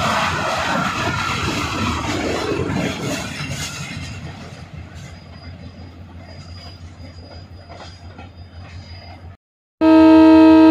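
Passenger coaches of a train rolling past on the rails with wheel clatter, fading away as the train moves off. After a brief cut to silence near the end, a GMU-30 diesel locomotive's horn sounds loudly, one held multi-tone chord.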